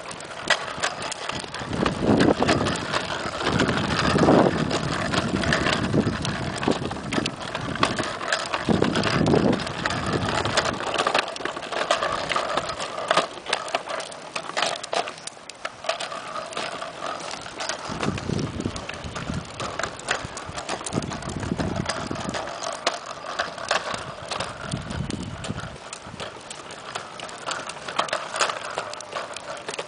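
Hard plastic wheels of a toddler's tricycle rolling and clattering over a concrete sidewalk, a stream of small clicks and knocks as they bump across the slab joints. Gusts of wind rumble on the microphone several times.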